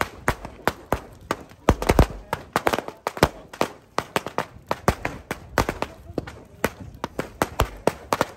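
Firecrackers going off in rapid, irregular sharp cracks, several a second, with a loud cluster about two seconds in.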